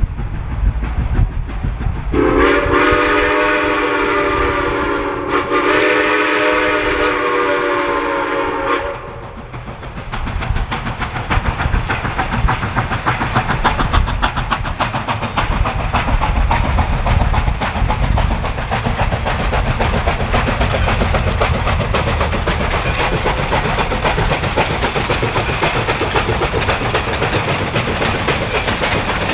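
Steam locomotive chime whistle sounding a long blast of several notes at once, with a brief break in the middle. Then the train runs by with a fast, even clatter over a steady rumble.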